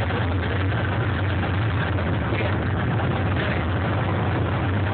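Tour tram's engine running with a steady low hum and an even rush of noise over it.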